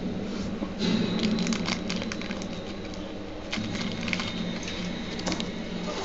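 Thick trading cards handled and slid against one another in the hands, giving a scattered run of light clicks and rustles over a steady low hum.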